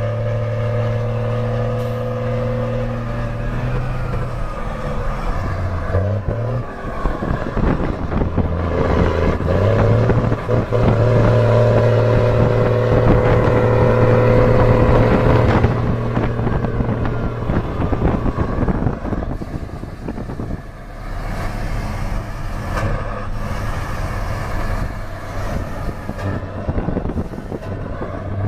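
Mercedes-Benz 1620 truck's diesel engine rumbling as it drives. The engine note holds steady, drops a few seconds in, then climbs again and holds for several seconds before turning rougher.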